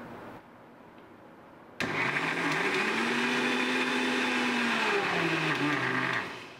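Electric mixer grinder running with its small steel chutney jar, grinding boiled spinach to a paste. The motor switches on abruptly about two seconds in, rises in pitch, holds steady, then drops in pitch and stops near the end.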